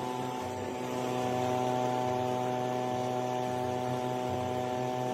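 Electric motor running with a steady, even hum.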